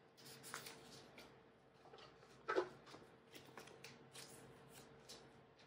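Photocards and plastic card sleeves being handled, faint rustles and small clicks, with one louder rustle about two and a half seconds in.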